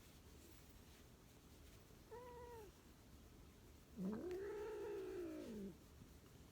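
Chinchilla cat meowing twice: a short meow about two seconds in, then a longer, louder drawn-out meow that rises and falls in pitch.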